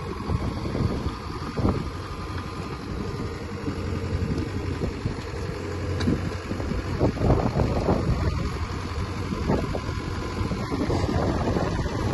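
Lonking CDM6060 mini excavator's diesel engine running steadily, with several louder bursts of clatter in the second half.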